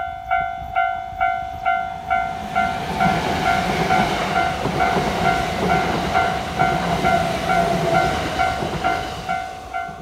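Japanese railroad crossing signal's electronic bell, ringing steadily at about two strikes a second. An electric train passes over the crossing from about two and a half seconds in until near the end, running with a rumble and wheel noise under the bell.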